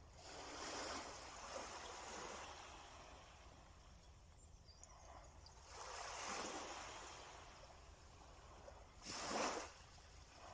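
Small waves breaking and washing up the shore in three surges that swell and fade, the last one short and the loudest.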